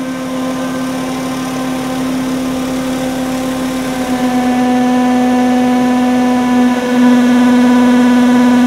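Background music: a synthesizer drone held on one low note over a noisy wash, swelling louder and fuller about four seconds in and again near seven seconds.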